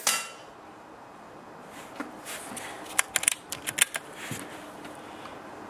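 Brocock Compatto PCP air rifle shot right at the start, its report ringing off briefly. Then, about two to four seconds in, a quick run of sharp metallic clicks as the cocking lever is worked to load the next pellet.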